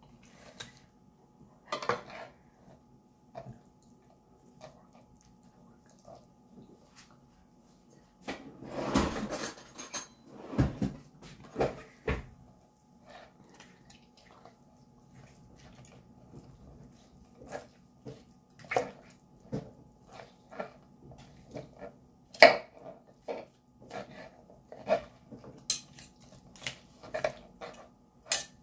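Chef's knife and fork clicking and scraping against a plastic cutting board while shredding cooked chicken. There is a longer scraping stretch about a third of the way in, then a run of sharp taps through the second half.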